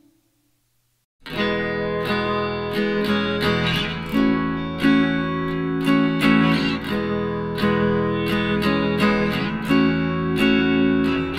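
Background music: acoustic guitar with plucked notes, starting about a second in after a brief silence.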